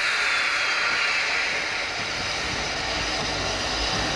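Narrow-gauge steam locomotive pulling away with its cylinder drain cocks open, steam hissing loudly. The hiss fades about two seconds in as the low rumble of the moving train grows.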